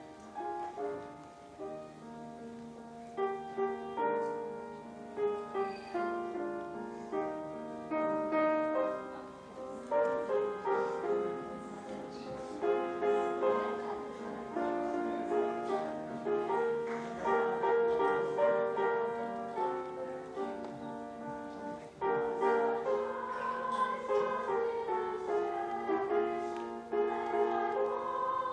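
Piano playing a melodic introduction with held chords; about two-thirds of the way through it gets louder and a wavering singing voice joins near the end.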